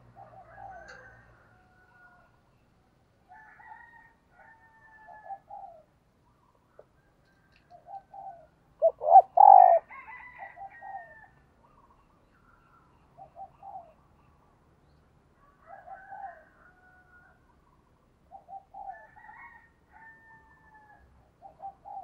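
Spotted dove cooing: short, throaty coo phrases repeated every two to three seconds. One much louder, longer call comes about nine seconds in.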